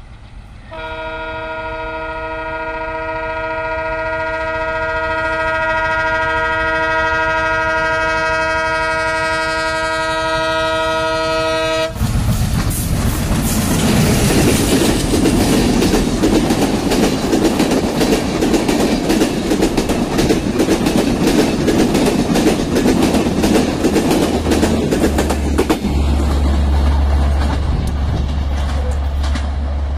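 Diesel locomotive's horn sounding one long continuous blast of about eleven seconds, growing louder as the train approaches, then cutting off suddenly. The locomotive and its passenger coaches then pass close by: loud running noise with the rapid clickety-clack of wheels over the rail joints.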